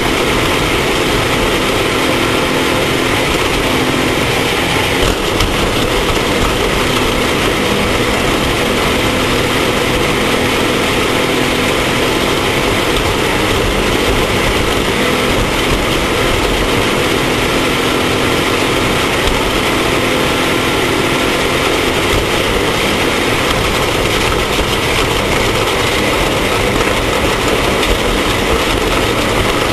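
Off-road race vehicle's engine running steadily at speed under a constant loud rush of noise, its pitch drifting only slightly.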